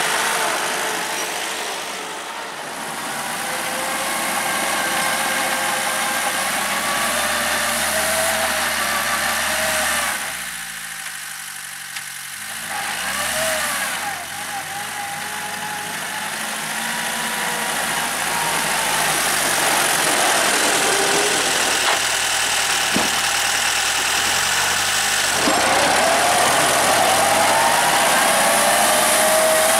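Homemade tractor's engine running as it pushes snow with a front blade, its pitch wavering with the throttle. It fades as the tractor moves off around the middle and grows louder as it comes back close near the end.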